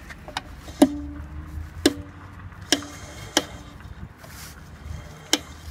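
UAZ drum brake with the wheel spinning, the shoe just adjusted out so its lining lightly scrapes the drum: the sign that the shoe-to-drum clearance has been taken up. Sharp clicks come about once a second, several with a short ring after them.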